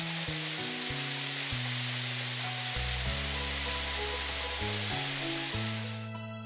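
Steady hiss of water spraying from car-wash nozzles, a cartoon sound effect, over background music with held bass notes. The hiss cuts off about six seconds in, leaving the music.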